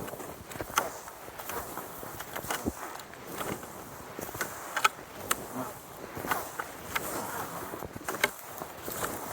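Cross-country skis scraping and swishing over snow in an irregular stride, with sharp crunchy clicks every second or so.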